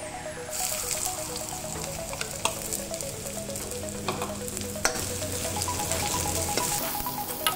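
Chopped garlic sizzling in hot oil in a wok, with the clicks and scrapes of a metal ladle stirring it.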